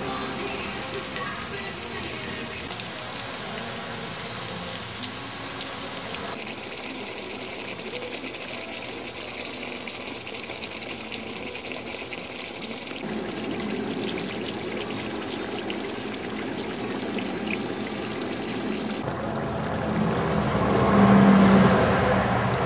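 Food sizzling and simmering in a 20-quart cast-iron Dutch oven, a steady bubbling hiss that changes abruptly a few times. It grows louder near the end, with a low hum underneath.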